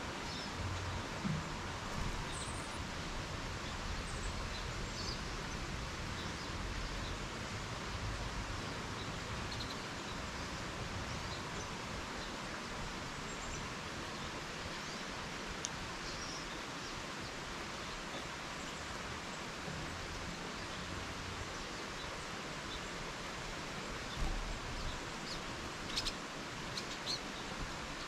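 Small songbirds giving scattered short, faint chirps over a steady background hiss, with a few light clicks and a low knock near the end.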